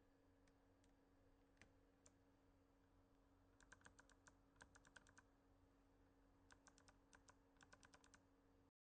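Faint typing on a mechanical keyboard fitted with novelty keycaps: a few single key clicks, then two quick runs of keystrokes, each about a second and a half long.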